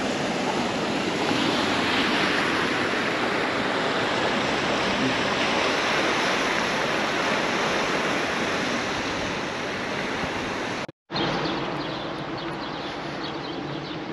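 Mountain stream flowing, a steady rush of water. The sound drops out for a moment near the end and comes back somewhat quieter.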